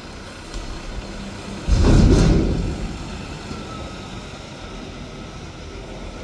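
Mack front-loader garbage truck running with a steady low engine rumble. About two seconds in, a sudden loud low surge rises and dies away over roughly a second.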